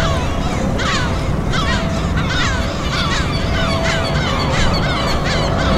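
A flock of birds calling continuously, many short calls that each fall in pitch, overlapping several a second, over a steady low rumble.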